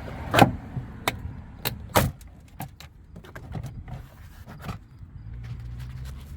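Plastic retaining clips of a car's door trim panel snapping loose as the panel is pried off the door with a screwdriver: a string of sharp clicks and snaps, the loudest about half a second and two seconds in.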